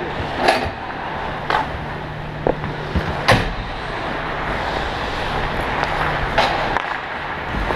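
Ice hockey skates gliding and cutting on rink ice under a steady rush of wind on a camera worn by a skating player. A handful of sharp scrapes and clacks from skate blades and sticks on the ice stand out, the loudest about three seconds in.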